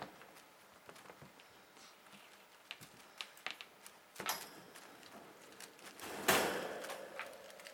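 Kittens playing: scattered light taps and clicks of paws and claws on the floor and on toys. A louder, longer scuffle starts about six seconds in and fades away.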